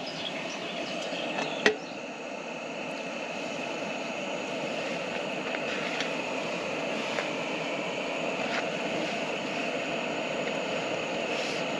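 Steady hiss of a Cadac Safari Chef gas camp cooker's burner running, with the lid off the pan. There is one sharp clack about two seconds in and a few faint taps of a metal spatula on the pan later on.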